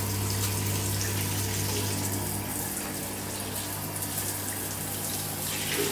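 Handheld shower head running at full flow, a steady hiss of spray splashing against tiled wall and glass.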